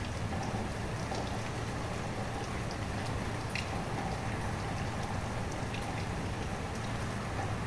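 Steady rain falling, with many scattered individual drops tapping sharply, over a low steady hum.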